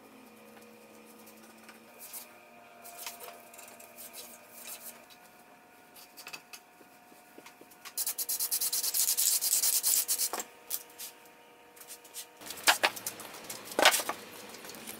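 A paintbrush scrubbing paint onto pine boards: faint scratchy strokes at first, then about two seconds of loud, rapid back-and-forth brushing midway. Near the end a few sharp knocks.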